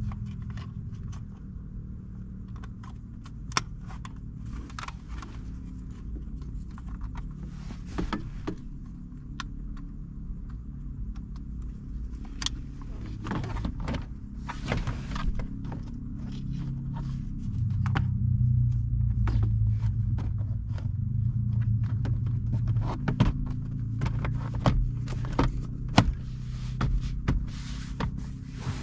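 Scattered clicks, taps and light rattles of car interior trim pieces, screws and hand tools being handled and fitted, over a steady low background hum.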